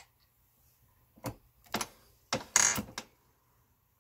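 Lee Auto Turret reloading press being worked by hand: two short clacks, then a longer, louder stroke about two and a half seconds in as the brass case is run into the carbide sizing die, which resizes it and punches out the spent primer.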